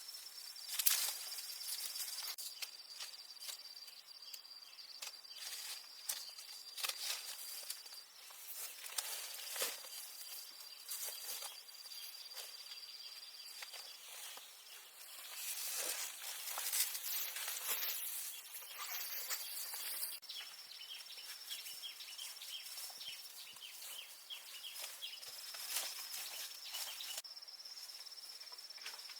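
A steady high-pitched insect trill runs throughout, over repeated close rustles, snaps and clicks. From about twenty seconds in, a fast series of short chirps joins for several seconds.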